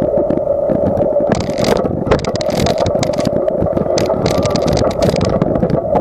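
Bicycle rolling across a wooden trestle deck, heard through a camera mounted on the bike: a steady rumbling hum with rapid knocks from the planks, and bursts of hissing rattle from about a second in until near the end.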